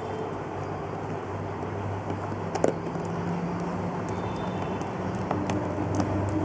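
A cardboard box turned over and handled by hand, with a light tap about two and a half seconds in, over a steady low rumble and hum.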